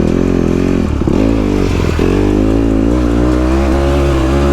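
Dirt bike engine under way, its revs rising and falling with the throttle: two brief drops about a second in and just before two seconds, then steadier running.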